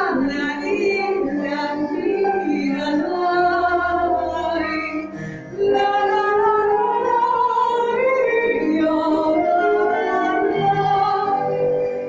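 A woman's voice singing, gliding between held notes over sustained low accompanying tones, with a brief break about halfway through.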